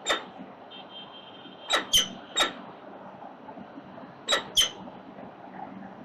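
Peregrine falcon chicks giving high, sharp begging peeps while being fed: six short squeaks, one right at the start, three close together around two seconds in and two more past four seconds.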